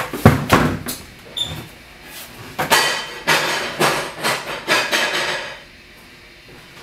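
Several sharp knocks and thuds in the first second, a short high squeak, then a few seconds of clattering and rustling that stops near the end.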